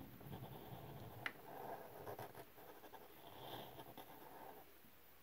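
Faint rubbing of a black felt-tip permanent marker drawing strokes across crumpled brown paper-bag paper, with a single light click about a second in.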